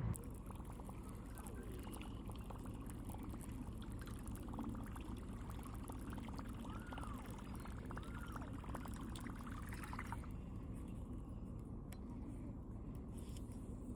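Water trickling and pouring steadily, with a few faint rising-and-falling notes about halfway through.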